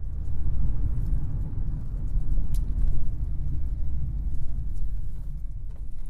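Deep, steady low rumble, with a few faint clicks or rattles over it.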